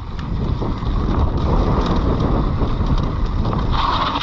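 Mountain bike descending a rough trail: a steady rumble and rattle of tyres and frame over the ground, mixed with wind buffeting the microphone.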